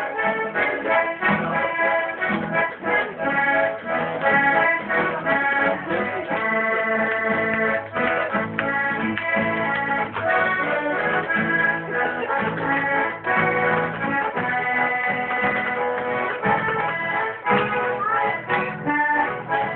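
Button accordion playing a tune, with held treble notes over a steadily pulsing accompaniment.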